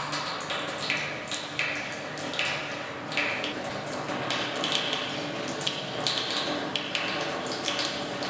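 Wet, liquid sounds: short irregular squelches or splashes, about one or two a second, over a faint steady low hum.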